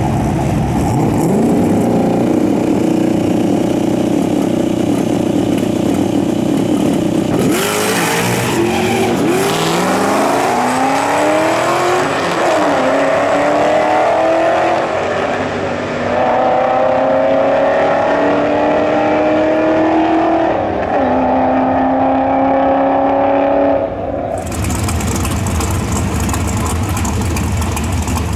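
Pontiac Firebird Trans Am V8 and a pickup truck engine held at steady revs at the starting line, then launching hard about seven seconds in and accelerating away, the engine pitch climbing and dropping with each gear change. About four seconds before the end it cuts to a front-engine dragster's V8 idling.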